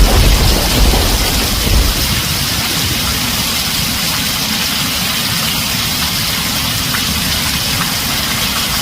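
Heavy rain drumming steadily on a tin roof, with a low roll of thunder dying away over the first two seconds.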